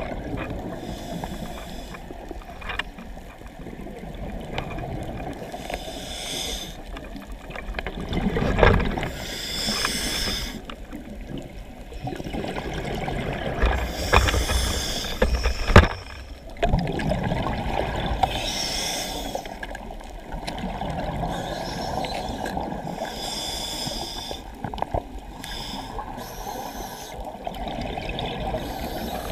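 Muffled water sounds with short hissing bursts every few seconds and an occasional knock.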